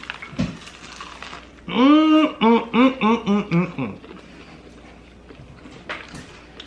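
A person laughing: one drawn-out pitched note, then a quick run of about six short syllables.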